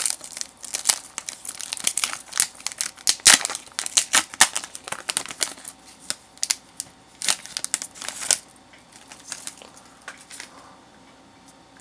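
Foil Pokémon card booster pack wrapper crinkling and tearing as it is ripped open by hand: a dense run of sharp crackles that thins out about eight seconds in.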